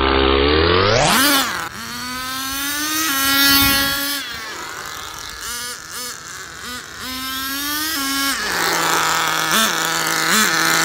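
HSP 94155 1/10-scale short course truck's nitro two-stroke glow engine revving hard as the truck drives. The pitch sweeps up in the first second and a half and stays high, rising and falling as the throttle is worked. It then settles to a lower steady note, with two short throttle blips near the end.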